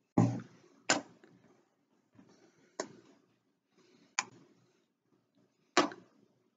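A small plastic bottle set down on a wooden tabletop with a dull knock, followed by four sharp, separate taps a second or two apart.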